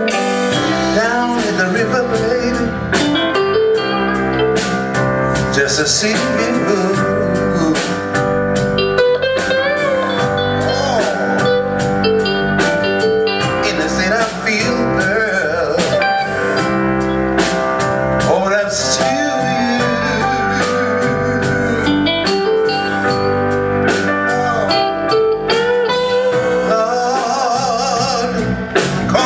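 Live blues band playing a slow song: drums, electric guitar and bass under a man singing with wavering, sustained notes.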